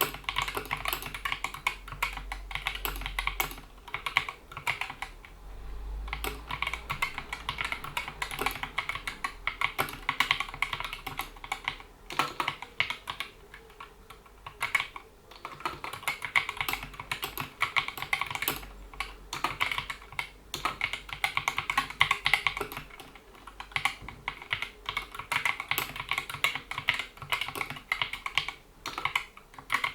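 Typing on a GK61 mechanical keyboard with Gateron optical switches: a fast, steady run of key clicks, broken by a few short pauses.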